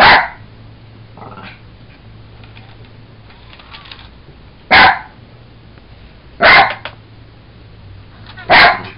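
Jack Russell terrier barking: four short, loud single barks, one right at the start and three more in the last half about two seconds apart.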